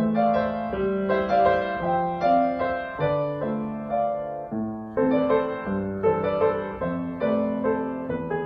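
Background music: a piano or electric piano playing a slow, gentle melody over chords.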